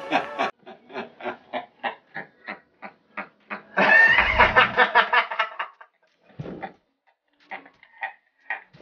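A person laughing hard in a rapid run of short breathy pulses, about four a second, then a louder, high-pitched laugh about four seconds in, trailing off into a few faint chuckles.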